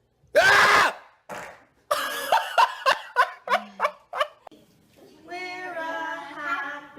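A loud, short vocal outburst, then a person laughing in short bursts about three a second, then a drawn-out voice.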